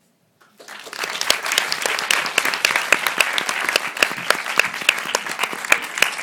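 Audience applauding, starting about half a second in and quickly swelling to steady clapping.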